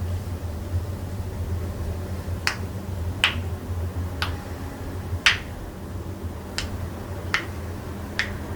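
Seven sharp joint-cracking pops in a row, roughly a second apart, as joints are worked in a manual chiropractic adjustment, over a steady low hum.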